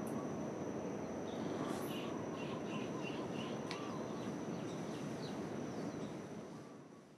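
Outdoor rural ambience: a steady low background hum with a thin, steady high tone. A run of short bird chirps comes through in the middle, and everything fades out near the end.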